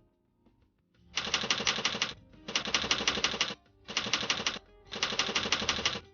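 Split-flap display clattering as its paddles flip in rapid runs: four bursts of fast clicking, each about a second long, with short pauses between.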